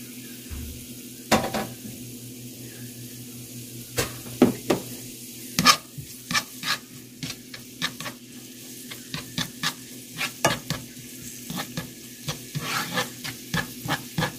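Minced ginger and garlic sizzling in oil in a nonstick frying pan while a spatula stirs them, scraping and tapping against the pan. The scrapes start with one about a second in, then come thick and fast from about four seconds in.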